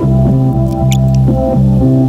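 Background instrumental music, sustained low notes with a melody over them, with a few brief high squeaks about a second in.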